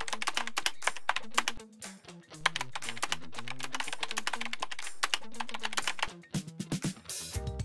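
Computer-keyboard typing sound effect: quick runs of clicks with a short break about one and a half seconds in, stopping about six seconds in. Background music with a low bass line plays underneath.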